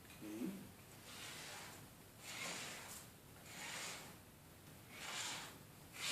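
Soft, repeated swishing strokes of glue being spread across the face of an assembled jigsaw puzzle, about one stroke a second.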